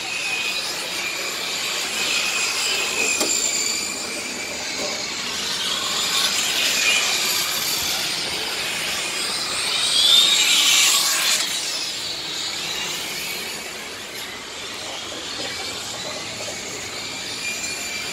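Radio-controlled racing trucks running laps, their motors whining at high pitch and shifting as they accelerate and brake. About ten seconds in, one passes close with a louder whine that rises and falls in pitch.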